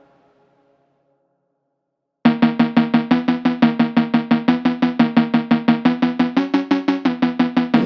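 Background music: a song fades out, there are about two seconds of silence, and then a new track starts with a fast, evenly repeated pitched percussive beat of about six strokes a second.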